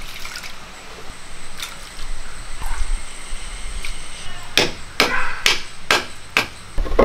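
Sago pearls poured by hand into water in a clay pot, pattering and splashing, then a quick run of about six sharp clatters and splashes near the end as the pot of sago and water is handled.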